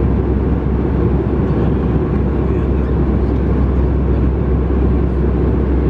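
Steady cabin noise of an Airbus A319 in flight: an even, low drone of engines and airflow.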